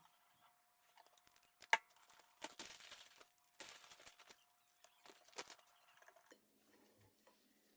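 Wrapping material being handled around a filled wrap: a sharp snap, then two short stretches of crinkling and tearing, then a few light clicks.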